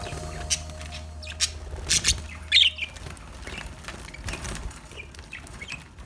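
Budgies bathing in a shallow water dish: short bursts of wing-fluttering, with chirps between them.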